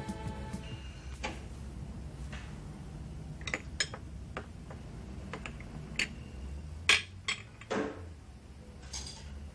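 Kitchen clatter: dishes, crockery and pans clinking and knocking now and then, the loudest clank about seven seconds in. A music cue ends in the first second.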